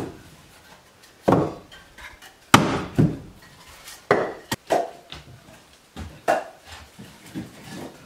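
Split firewood knocking and clattering as pieces are stacked into a woodpile, in irregular single knocks a second or so apart.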